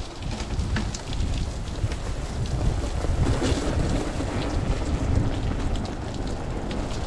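Wind buffeting the microphone in a steady low rumble, with scattered light ticks of water spattering.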